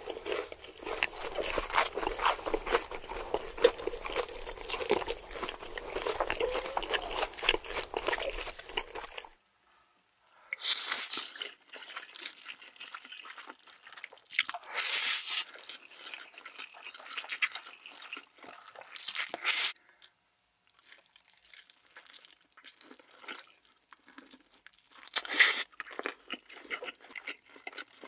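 Close-miked eating sounds: dense crunching and chewing of crumb-coated cheese corn dogs for about nine seconds, then, after a sudden cut to a moment of silence, eating of black bean noodles with a few short loud bursts and quieter chewing between them.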